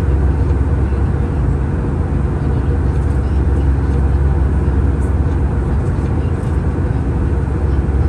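Airbus A319-115 cabin noise in cruise flight: a steady rush of airflow and engine noise, heaviest in the low bass.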